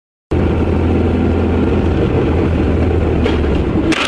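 Steady car engine and road noise inside a moving car's cabin as picked up by a dashcam, a low drone with a couple of short rattles near the end.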